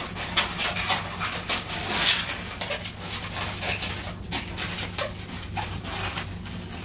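Latex 260 modelling balloons rubbing and squeaking against each other and the hands as they are tied and twisted, in short irregular bursts.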